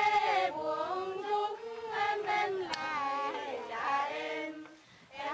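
Women singing a Vietnamese hát dô folk song in long, slowly wavering held notes. The singing fades out near the end.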